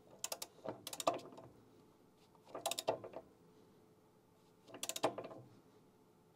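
Socket ratchet clicking in three short runs of rapid clicks as it is worked back and forth, tightening a threaded electric anode rod into the top of a water heater tank.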